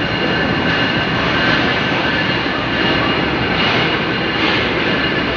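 Train engine running steadily at a station platform: a constant loud roar with a faint high whine running through it.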